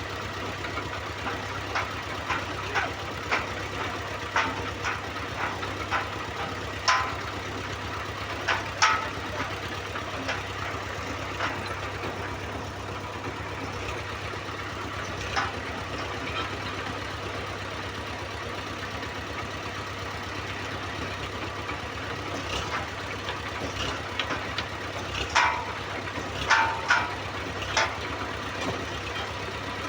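A heavy machine's engine running steadily, with irregular sharp metallic clanks and knocks coming in clusters, most of them in the first few seconds and again near the end.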